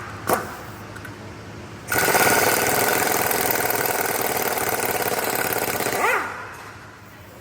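Power impact wrench hammering in one burst of about four seconds, with a fast rattling pulse. It winds down with a falling whine as the trigger is released.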